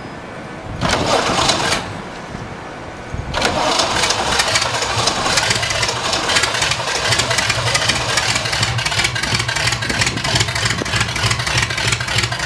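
ULPower UL520iS air-cooled flat-six aircraft engine on its first start: a short burst of cranking about a second in, then the engine turning over again with a rapid, even pulsing, the pusher propeller spinning.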